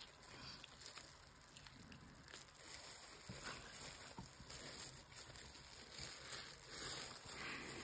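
Faint eating sounds from chicken being chewed, with scattered small clicks and soft rustles.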